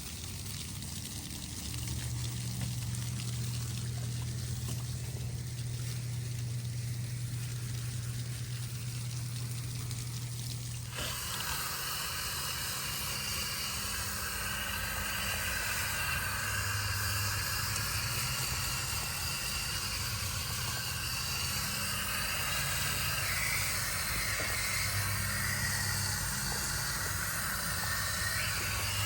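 Water spraying from a hose, rinsing coil cleaner out of a clogged condenser coil; the spray hiss cuts in suddenly about eleven seconds in and runs on. A low steady hum sits underneath.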